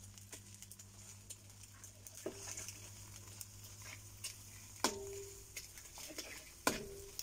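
Metal ladle scraping and clinking against a steel wok as chopped onions, garlic and sausage are stirred, over a faint sizzle. Two louder clinks, a little before the fifth second and near the end, ring briefly off the pan.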